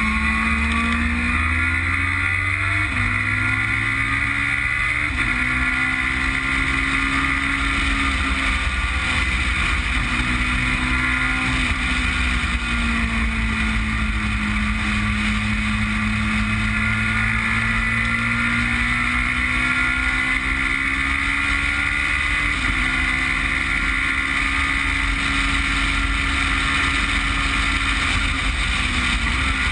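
Westfield Megabusa's Suzuki Hayabusa inline-four motorcycle engine running hard around a race track, its pitch rising and falling with throttle and gear changes.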